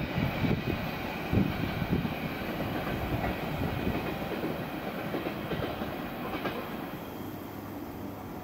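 Electric train moving away down the line, its wheels knocking irregularly over the track under a low rumble that fades steadily.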